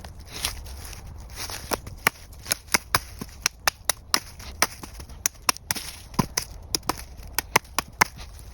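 Irregular series of sharp, short clicks and light knocks, several a second, from hand work on birch wood.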